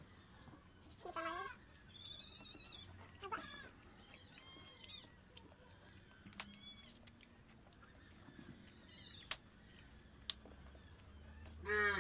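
A cat meowing again and again, drawn-out calls that bend in pitch, with loud meows about a second in and right at the end.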